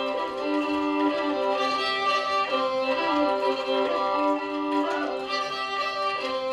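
Fiddle music: a melody of long, held notes.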